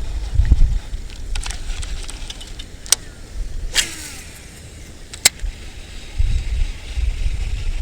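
Strong wind buffeting the microphone in gusts, easing in the middle and picking up again near the end. A few sharp clicks and ticks sound in the lull, one of them followed by a short falling whir.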